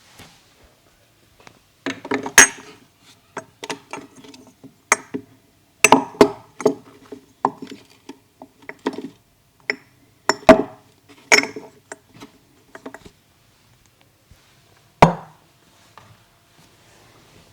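Percussive Indian head massage: hands slapping and tapping on the head. Irregular sharp slaps and pops, roughly two a second, start about two seconds in, break off, and end with one last strike near the end.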